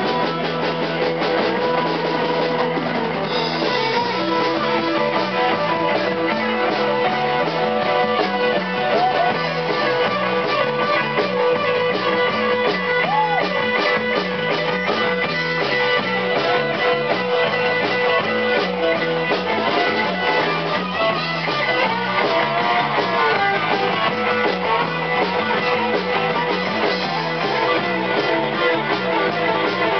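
Live rock band playing loud: electric guitar and bass guitar over a drum kit, with a few bent guitar notes.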